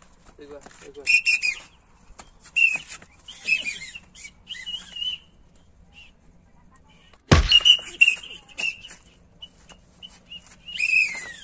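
Repeated high, wavering whistle-like chirps, with one loud sudden smack about seven seconds in.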